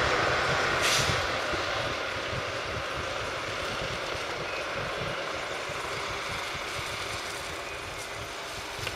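Double-decker bus driving slowly across a depot yard, its diesel engine running and slowly fading, with a short hiss about a second in.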